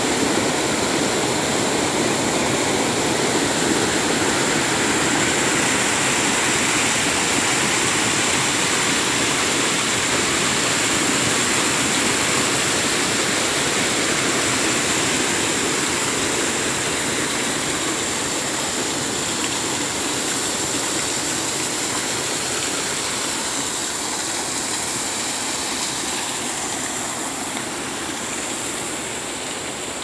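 Drinking water gushing from a burst water main: a steady, loud rushing and churning that eases gradually over the last several seconds.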